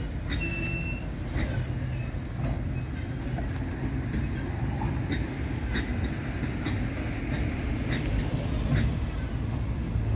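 Flat wagons of a ballast freight train rolling past: a steady low rumble of steel wheels on rail with irregular clicks and knocks, and a brief high squeal about half a second in.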